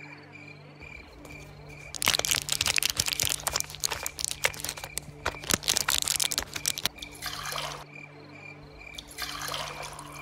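A spoon stirring quickly inside steel tumblers, clinking against the metal many times over a few seconds. Then milk is poured from a steel pot into a steel tumbler in two short pours.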